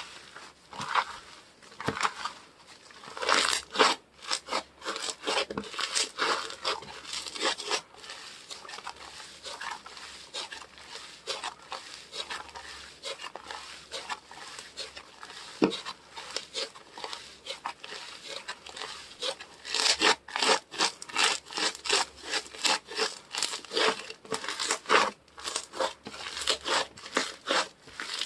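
Soft slime being squished, pressed and stretched by hand, giving rapid sticky clicks and crackles. The clicking is busiest in the first several seconds and again from about twenty seconds in, and softer in between.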